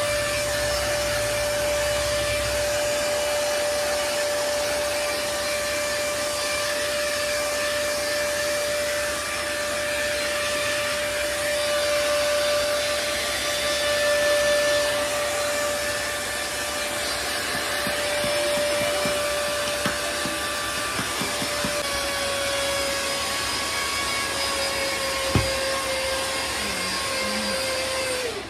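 A 5-in-1 hot air brush styler, a Dyson copy, blowing steadily with a constant whine as it is brushed through long hair. Near the end the whine falls away as the motor winds down.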